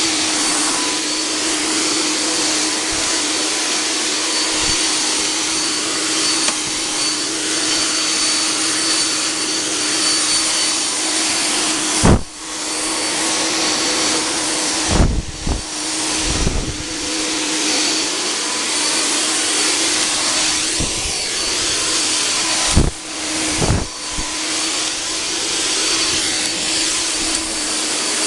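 Cold fog generator running steadily with a loud rushing hiss and a steady hum as it sprays insecticide mist. A few sharp knocks and brief dips in the sound come about 12, 15 and 23 seconds in.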